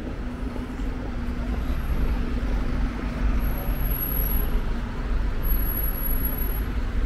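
Road traffic on a city street: motor vehicles running, with a steady engine hum under a continuous rumble.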